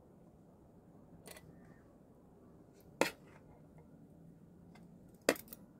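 Metal spoons and forks clinking against metal serving platters as food is served: a few separate sharp clinks, the loudest about three seconds in and again near the end.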